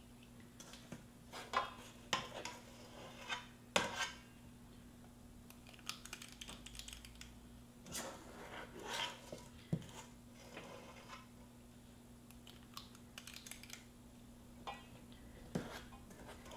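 Metal ice cream scoop scraping and clicking against a stainless steel mixing bowl while scooping stiff cookie dough: irregular light clicks and scrapes.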